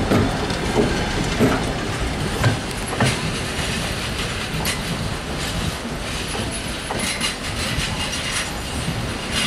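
Passenger train coaches rolling by on the track, their wheels clacking over rail joints in the first few seconds. Then a steady rumble that slowly fades as the end of the train pulls away.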